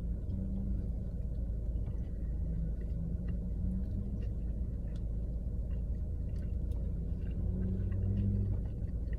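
Steady low rumble, with faint clicks and smacks of chewing on top as food is eaten.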